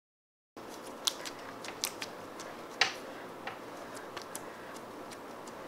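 Pink crystal jelly slime squished and poked by fingers, giving faint scattered clicks and small sticky pops, about one or two a second, over a low hiss. The slime makes little sound when poked.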